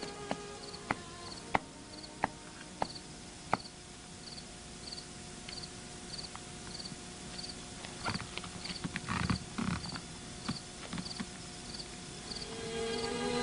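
Crickets chirping in a steady high pulse about twice a second, with a run of sharp knocks about every half second in the first few seconds and a cluster of irregular knocks and dull thuds in the second half. Music swells in near the end.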